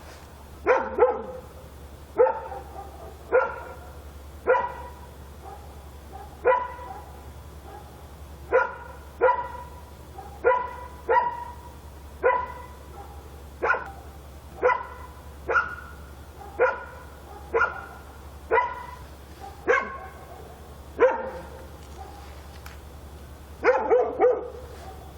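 A dog barking over and over, single barks roughly once a second with a few in quick pairs, and a fast run of three barks near the end. A steady low hum sits underneath.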